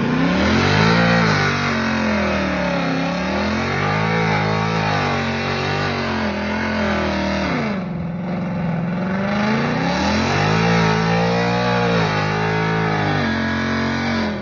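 Dodge Scat Pack's 392 HEMI V8 revving hard, climbing and falling again and again during a burnout, with the rear tyres spinning and screeching. The engine drops off briefly about eight seconds in, then revs back up.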